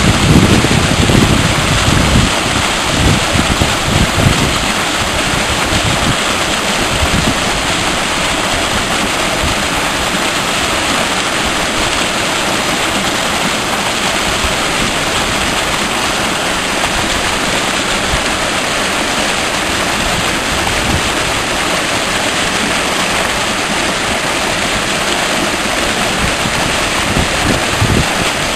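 A fast mountain stream rushing steadily. Gusts of wind buffet the microphone during the first few seconds and briefly again near the end.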